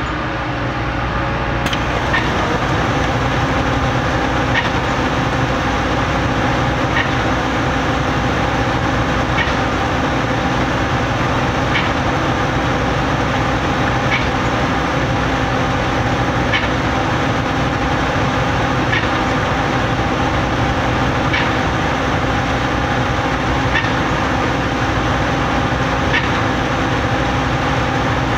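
Putzmeister trailer concrete pump running steadily while pumping concrete, with a sharp clack about every two and a half seconds as it changes stroke.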